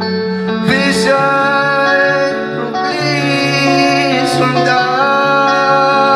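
Live pop song: electric guitar playing under a male voice singing long held notes.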